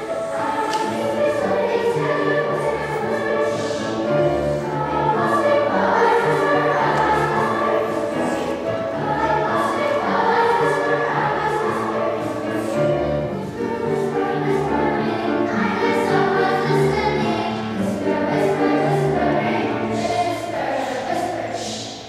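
Children's choir singing.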